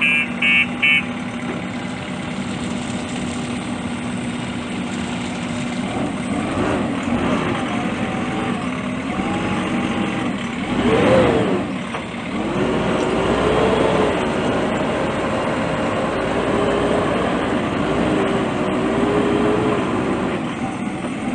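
JCB 3DX Super backhoe loader's four-cylinder diesel engine running, with a few quick reversing-alarm beeps at the start over a steady idle. From about six seconds the engine speed rises and falls as the machine is driven, with one sharp rev near the middle, then runs on at a raised, wavering speed.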